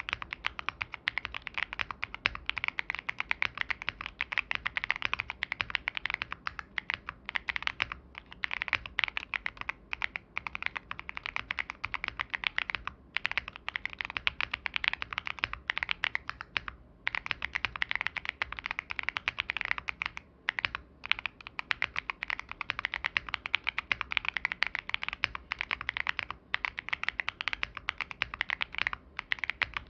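Steady fast typing on a Tofu 65 v2 mechanical keyboard with stock TTC Holy Panda tactile switches, a carbon fibre plate and GMK-style keycaps. The case is damped with case foam, PE foam and a tape mod, giving a creamy, poppy clack. It is a dense run of keystrokes with a few brief pauses near the middle.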